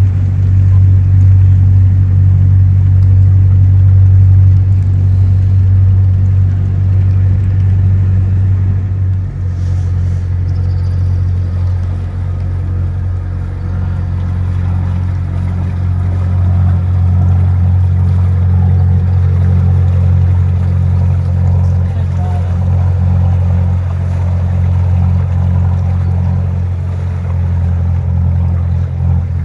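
Work boat's inboard engine running at a steady, low-pitched drone as the boat motors slowly past on the river.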